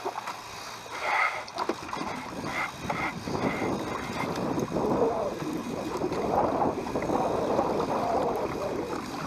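Strong wind buffeting the microphone and choppy water slapping against a small fishing boat's hull, a steady rushing wash of noise, with a few short faint high tones in the first few seconds.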